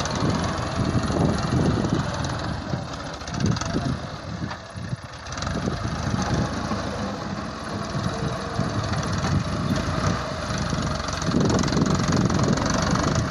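Diesel tractor engine running under load as its front-mounted blade pushes sand along a trench.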